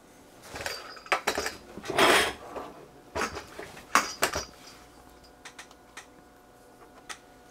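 Handling noise on a workbench: a run of clicks, clinks and rustles, hard objects being moved and knocking together, for the first four seconds or so, then a few faint ticks.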